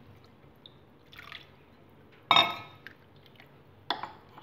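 Liquid sloshing and a utensil clinking against a glass bowl as water is mixed into thick sambar. There are two sharp clinks: the louder one about two seconds in, the second near the end.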